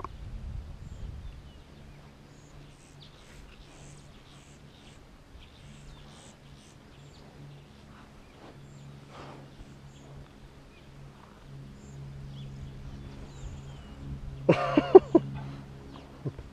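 Lion cub close to the microphone, making a low steady rumble that comes and goes, with faint wet clicks as it mouths and licks a man's face. Near the end comes one short, loud vocal sound that bends in pitch.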